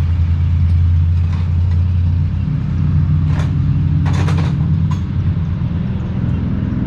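Steady low mechanical hum with a few short metallic clinks, about three and four seconds in, of tools and parts being handled while the expansion valve is fitted.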